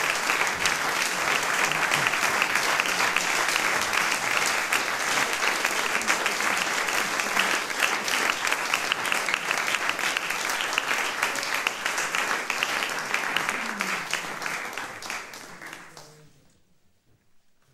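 Audience applauding, a dense even clapping that fades away and stops near the end.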